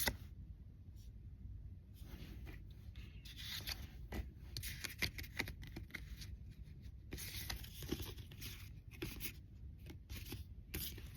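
Pokémon trading cards being slid and rubbed against each other by hand as a stack is flipped through: a series of soft, irregular papery swishes and scrapes.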